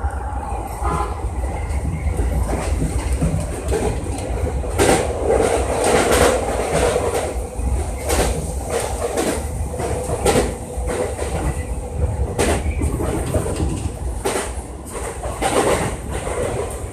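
Sotetsu electric commuter train running at speed, with a steady low rumble and wheels clacking over rail joints and points, heard from inside the front car.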